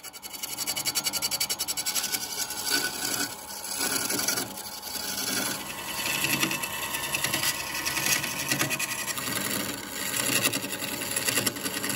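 Hand-held turning chisel cutting a spinning length of bamboo on a wood lathe, throwing shavings: a fast, rhythmic rasping chatter of the tool against the bamboo that swells and eases as the cut goes on.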